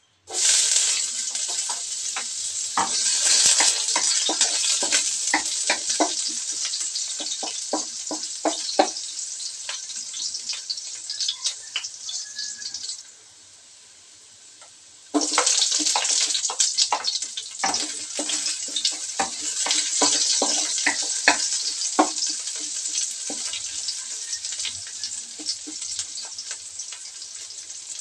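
Chopped garlic sizzling and crackling in hot oil in a wok, starting suddenly as it goes in and easing off gradually. After a short quieter break about halfway, the sizzle starts again loudly as sliced red onion goes into the oil, then slowly settles.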